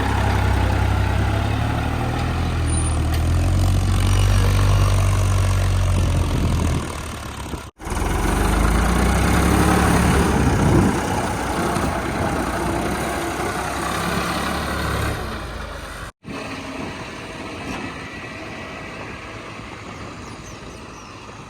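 Heavy diesel engine of earthmoving machinery running steadily, across three clips joined by abrupt cuts. After the second cut, about two-thirds of the way in, the engine sound is quieter and less deep.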